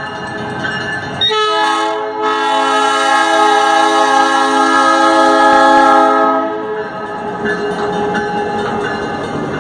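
Diesel locomotive air horn sounding a long, steady multi-note chord. It breaks off briefly about a second in, sounds again and stops about seven seconds in. After that the locomotives' engines and wheels rumble past on the rails.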